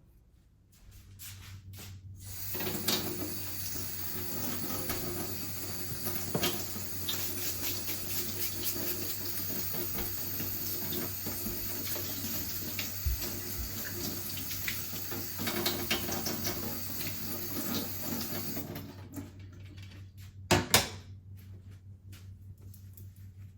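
Water running from a tap into a sink, a steady rush that starts a couple of seconds in and is shut off sharply after about sixteen seconds. A single sharp knock follows near the end.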